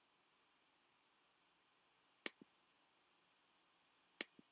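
Two sharp clicks about two seconds apart over near silence, each followed a split second later by a softer click, like a button pressed and released. These are computer button clicks stepping through a slideshow's animations.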